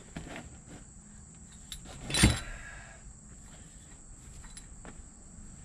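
A steady, high-pitched chorus of insects, crickets by the sound of the tags, with one sharp metal clank about two seconds in from a tool knocking against the engine's cast-iron head or block.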